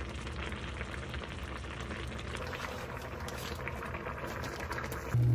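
Food cooking on a stove: a steady bubbling, sizzling hiss with faint crackles. Just before the end a loud, steady low hum starts up.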